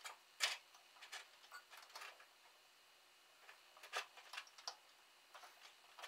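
Faint scattered clicks and taps of a car wiring harness being handled, its spade connectors pushed onto the brake switch terminals. The sharpest click comes about half a second in, with a few more near four seconds.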